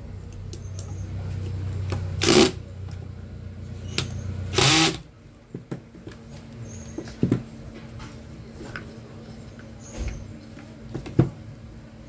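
Cordless drill/driver running as it drives the screws that close a table-fan motor's housing, with two short loud bursts about two and a half seconds apart. It stops about five seconds in, and a few knocks and clicks follow as the tools and the motor are handled on the bench.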